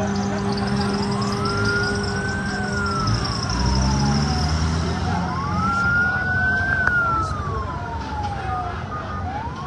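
Police siren in a slow wail, rising and falling about every four seconds, two full cycles, over a low vehicle engine rumble.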